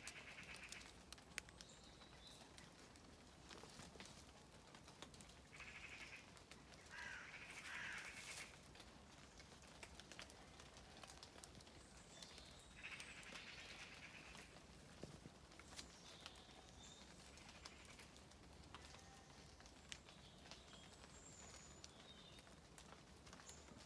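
Quiet outdoor ambience with a few short, faint animal calls, the loudest about eight seconds in, and faint bird chirps and small clicks.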